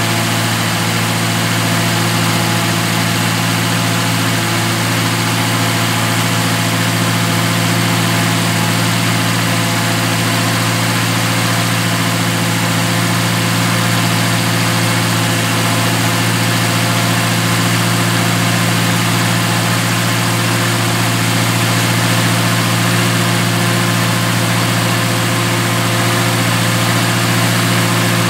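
Ford 289 cubic-inch V8 with a solid-lifter cam and a Summit Racing four-barrel carburetor idling steadily at an even, unchanging speed.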